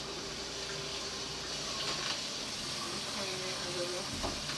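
Kitchen faucet running steadily into the sink.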